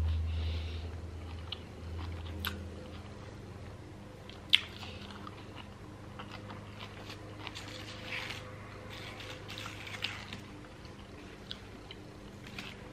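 Close-up crunching and chewing of Quest protein chips, with scattered sharp crisp snaps, the loudest about four and a half seconds in.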